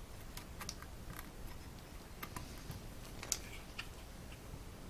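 Faint, scattered clicks and light taps from hands handling and lifting the opened mini PC's case, with one sharper click a little past three seconds in.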